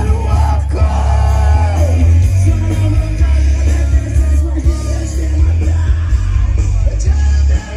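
Loud rock music with a heavy bass line and a singer, briefly dipping just before the end.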